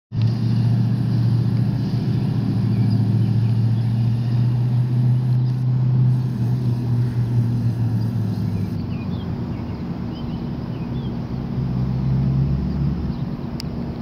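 Road traffic: motor vehicle engines running as a steady low hum, which eases after about nine seconds.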